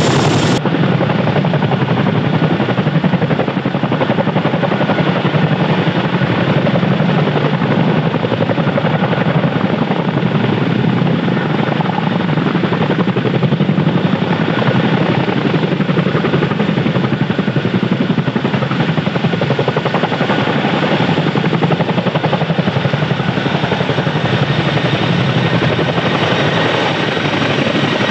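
Boeing CH-47F Chinook's tandem rotors and twin turboshaft engines running loud and steady while hovering low and flying past, a continuous dense blade chop with a faint steady turbine whine above it.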